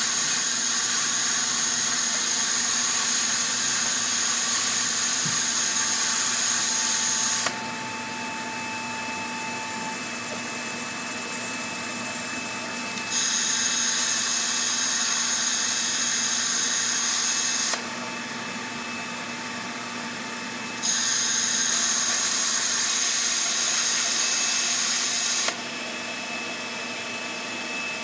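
Handheld plasma cutter's arc hissing loudly with a steady high whistle as it cuts steel plate, switched on and off by foot pedal. There are three cuts: one stops about seven seconds in, the next runs from about 13 to 18 seconds, and the last from about 21 to 25 seconds. A quieter steady hiss continues in the pauses.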